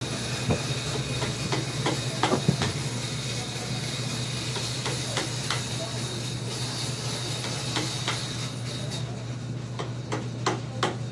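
Irregular wooden knocks and taps as a mitred wooden frame is handled and shifted, over a steady workshop hum and hiss. The hiss fades near the end.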